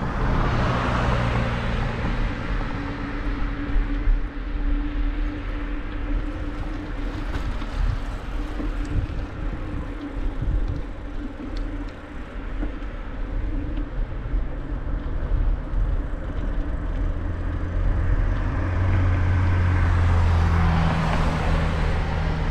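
Road traffic passing on a city street, heard from a moving bicycle. A car goes by at the start and another swells past near the end, their engine hum over a constant low wind-and-road rumble.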